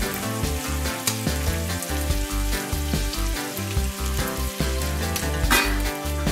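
A stainless-steel pot of pasta boiling, stirred with a plastic pasta spoon, with a sharp metal clank about five and a half seconds in as the steel lid is set on the pot. Background music with a steady bass line plays underneath.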